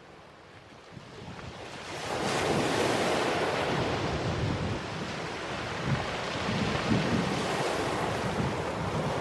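Small sea waves breaking and washing up over a shingle beach, with wind buffeting the microphone. The sound swells in from silence over the first two seconds, then stays steady.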